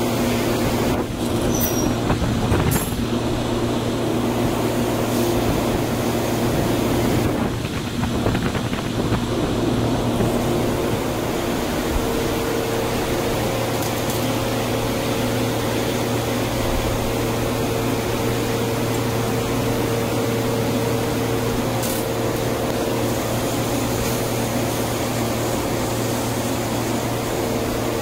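Glassblowing gas burners and blower fans running with a steady rushing noise over a constant low hum. A few short knocks in the first three seconds.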